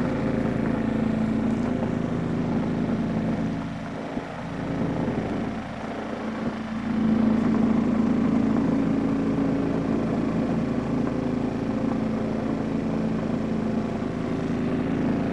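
Twin tub washing machine's spin dryer running, its motor and spinning basket giving a steady hum as it spins water out of a pair of work pants. The hum eases off briefly about four seconds in and comes back up about seven seconds in.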